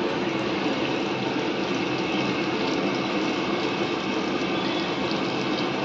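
Mung dal batter fritters (mung bada) deep-frying in hot oil in an iron kadhai: a steady, even sizzle as fresh dollops of batter are dropped in.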